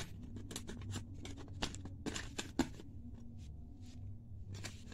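Light clicks and scrapes of plastic set squares and rulers being handled in a metal geometry tin, a quick flurry through the first couple of seconds and a few more near the end.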